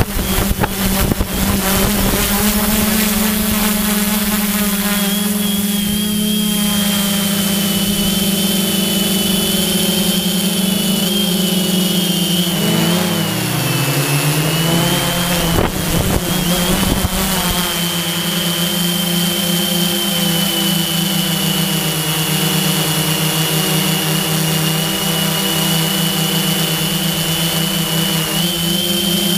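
Electric motors and propellers of an FPV drone, heard from the camera on board: a steady buzz with a high whine above it. About twelve seconds in the pitch drops and then climbs back. Wind rushes over the microphone near the start and again around sixteen seconds.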